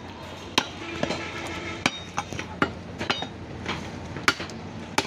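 Butcher's heavy knife chopping beef down onto a wooden log chopping block: about eight sharp knocks at an uneven pace, roughly a second or less apart.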